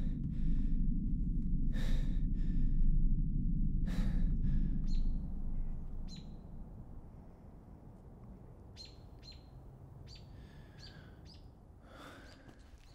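A loud low rumbling drone with three swelling whooshes about two seconds apart, fading out about six seconds in. After it, short high bird chirps over a quiet outdoor background, and a man's gasp near the end.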